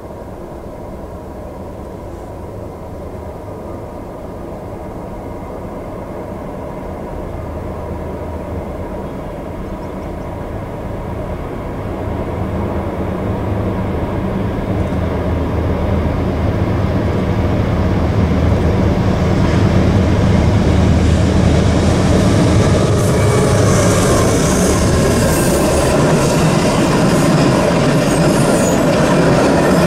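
Norfolk Southern freight train approaching and passing close by. A low diesel-locomotive drone grows steadily louder for about twenty seconds. Then the rushing, hissing noise of steel wheels on the rails takes over as the freight cars roll by.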